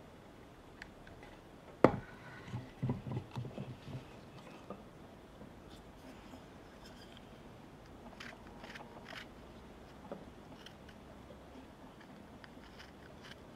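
Close-up sounds of carving and handling a wooden skull. A single sharp knock comes about two seconds in, followed by a short run of soft knocks. Later there are a few light scrapes and clicks of a carving tool on wood.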